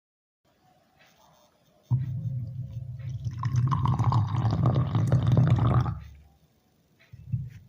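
A person drinking coffee with one long, loud slurp lasting about four seconds, starting about two seconds in.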